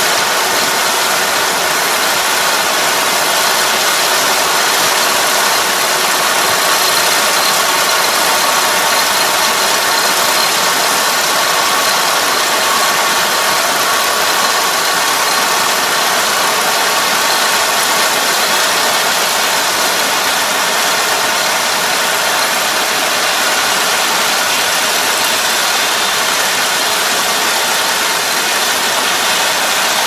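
Rice combine harvester running steadily as it harvests: an even, unbroken engine and machinery noise.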